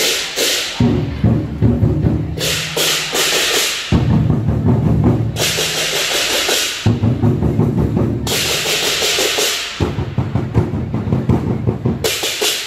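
Chinese drum and hand cymbals playing a dragon-dance rhythm: stretches of fast, dense drumming alternate with bursts of clashing cymbals about every three seconds.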